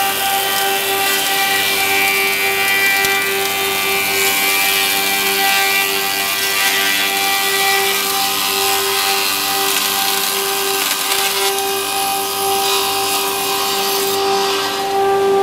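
Seven-spindle Leadermac LMC-723CM four-sided planer-moulder running under load, its cutter heads planing and profiling a wooden workpiece. The cutting noise sits over a steady whine from the spinning spindles.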